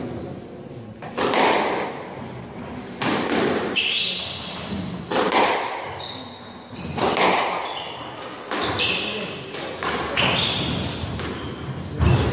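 Squash rally: the ball cracks off the rackets and the court walls about every one to two seconds, each hit echoing in the hall, with sports shoes squeaking on the wooden court floor between the shots.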